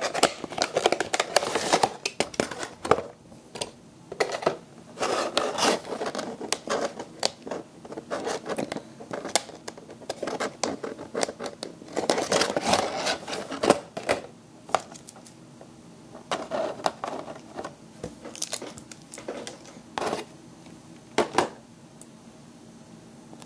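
Cardboard model box and its packaging being handled as a small die-cast model airliner is slid out: uneven scraping, rustling and crinkling with clicks. Two sharp knocks come near the end.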